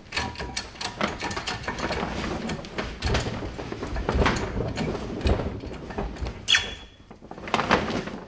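Hand-lever hydraulic bench press being worked to squeeze the two halves of a metal sail eyelet together under about 20 tonnes, with irregular knocks and clatter of the lever and steel dies and the rustle of heavy sailcloth. A short metallic ring sounds about six and a half seconds in.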